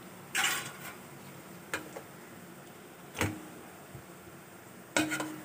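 A cooking spoon scraping and knocking against a metal pot as chicken tikka pieces are turned in their sauce: a short scrape, then a few separate knocks ending in a quick double knock, each ringing briefly.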